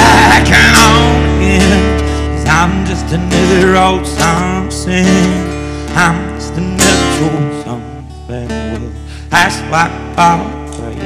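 Live band playing an instrumental stretch between sung lines: strummed acoustic guitar over electric guitar, drums and keyboard, gradually getting quieter.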